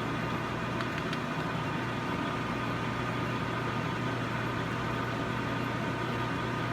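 Metal lathe running steadily at about 220 RPM, an even motor and drive hum, with two faint ticks about a second in.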